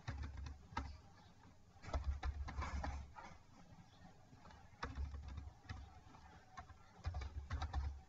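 Computer keyboard keys clicking in four short bursts of typing, with a low rumble under each burst.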